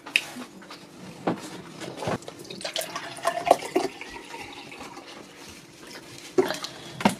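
Water poured from a plastic bottle into a drinking glass, with scattered sharp clicks through it.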